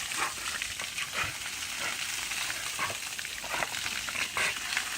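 Water spraying in a steady hiss, crackling and spattering irregularly as the spray hits the dog and the ground.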